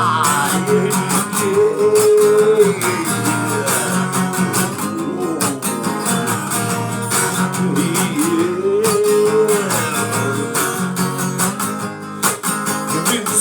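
Instrumental passage of a rock song: strummed acoustic guitar chords under a melodic lead line that bends up and down in pitch.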